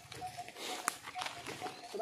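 Footsteps crunching and rustling through dry leaf litter, with one sharper snap about halfway through. A faint, evenly pulsing tone repeats in the background.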